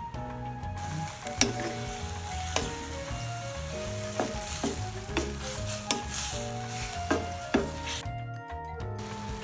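Squid and peppers sizzling and bubbling in sauce in a stainless steel wok while a spatula stirs, knocking against the pan about seven times. The sizzle starts about a second in and cuts out briefly near the end.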